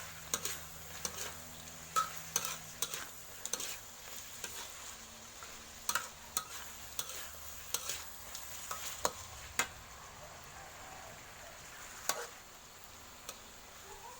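Frog curry stir-frying in a pan: a steady sizzle, with a cooking utensil scraping and knocking against the pan at irregular intervals as it is stirred.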